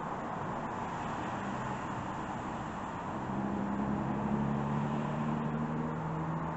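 A steady engine hum that grows louder about three seconds in, over a constant hiss of background noise.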